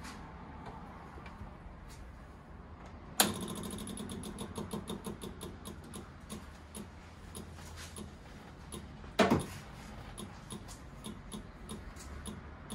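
Sazgar auto rickshaw's single-cylinder engine catching about three seconds in on its first start after winter storage, then running at idle with a fast, even ticking beat. A second sharp burst comes near nine seconds, and the ticking goes on after it.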